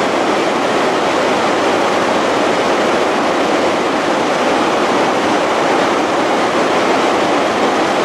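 Låtefossen, a twin waterfall with a 165 m drop, rushing loudly and steadily: an even roar of falling water and spray.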